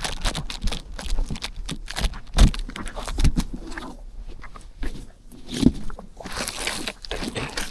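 Footsteps with knocks, scrapes and thumps of a large cardboard-boxed mattress being carried and set down on the driveway. The loudest thump comes about two and a half seconds in.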